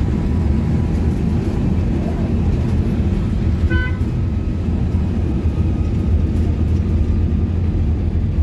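Cabin noise of a PAZ 320414 bus under way: a steady low drone of engine, drivetrain and road. A short high beep sounds a little before four seconds in.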